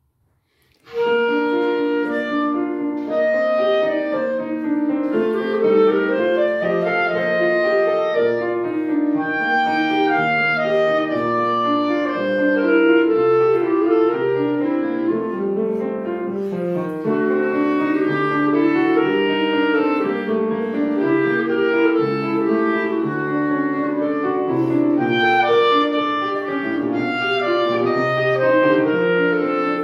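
Clarinet playing a classical melody with grand piano accompaniment, beginning suddenly about a second in.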